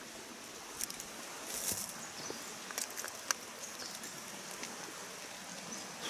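Mountain stream running steadily, with a scattering of light clicks and rustles close by; the sharpest click comes a little after three seconds in.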